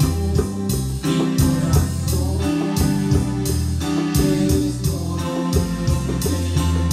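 Cumbia played live on electronic keyboards, with a bass line and chords under the melody, over bongos keeping a steady beat.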